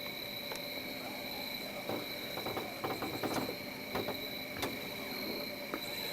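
Night insects trilling steadily in two high, unbroken tones, with a short spell of rustling and a few light knocks about two to four and a half seconds in.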